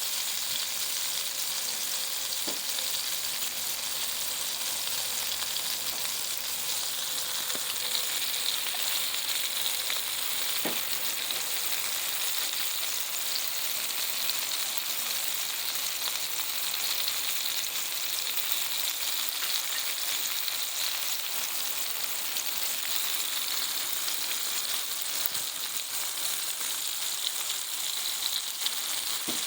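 Blackfin tuna and wahoo pieces frying in hot bacon grease in a pan: a steady sizzle, with a couple of faint ticks.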